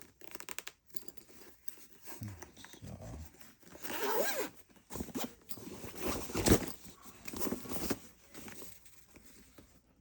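A tool bag being handled: a zipper worked and the bag rustling and scraping in irregular bursts, with a sharp knock about six and a half seconds in.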